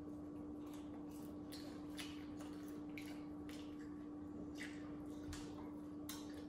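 Faint, wet chewing and lip-smacking of people eating chicken wings and pizza, in many short scattered clicks, over a steady hum.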